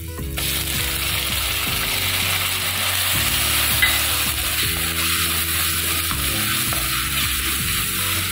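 Chopped tomatoes sizzling in hot oil with frying onions in a cast-iron kadai. The sizzle jumps up suddenly about half a second in as they go in, then runs on steadily. A wooden spatula stirs and scrapes through the pan.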